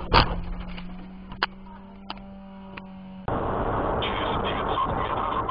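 A loud bang from a truck colliding with a car on a wet road, then a faint steady hum with a few scattered clicks. About three seconds in it cuts to steady road and wind noise heard inside a moving car.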